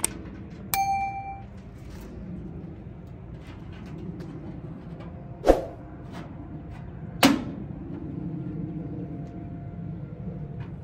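A click and a short beep near the start, then two sharp knocks a couple of seconds apart over a steady low background: steel parts of a new charcoal grill knocking together as it is assembled.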